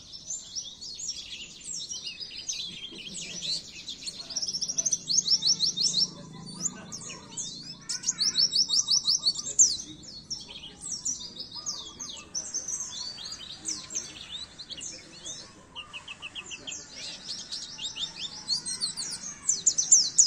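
White-eye (pleci) song: a fast, continuous high twittering of chirps and quick rattling trills, with hardly a break.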